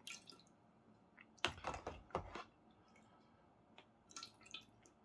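Wet mouth sounds of someone eating noodle soup: chewing and slurping in a few short bursts, about a second and a half in and again near four seconds.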